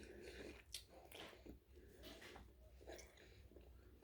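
Faint chewing and mouth sounds of a person eating, with a few soft scattered clicks.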